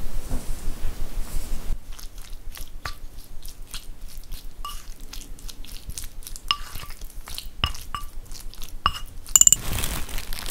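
Chicken pieces being mixed into a wet yogurt-and-spice marinade in a ceramic bowl: squishing with many sharp clinks of a utensil against the bowl, some with a short ring. Near the end, cling film crinkles as it is stretched over the bowl.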